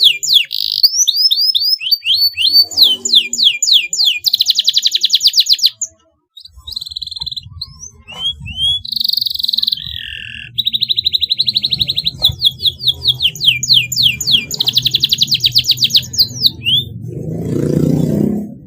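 Domestic canary singing a fast song of rapidly repeated rising chirps and buzzing trills, with a brief pause about six seconds in. A low rumble runs under the song in the second half, swelling just before the end.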